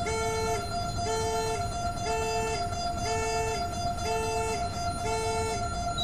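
Shipboard fire alarm sounding, set off by a smoke detector under weekly test. It gives a pulsed tone about once a second, each beep about half a second long, over a steady tone.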